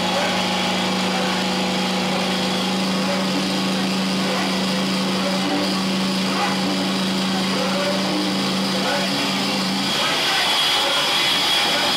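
Live harsh-noise performance on turntables and electronics: a dense, steady wall of noise over a low hum. The hum drops out about ten seconds in and the noise gets slightly louder and brighter.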